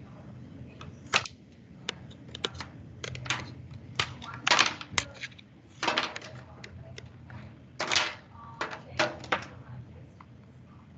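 Irregular clicking and tapping, with several louder knocks and short scuffs through the middle, over a faint steady low hum.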